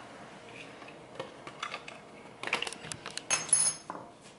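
A few light clicks and knocks, then a short clink with a brief high ring about three and a half seconds in: a metal utensil knocking against kitchenware.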